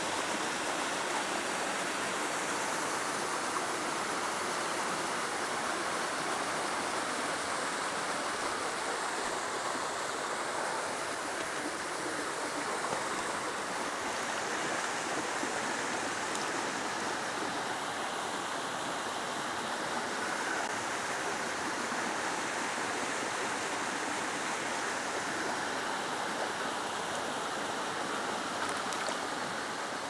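Mountain stream and a small waterfall rushing: a steady, even noise of falling and running water.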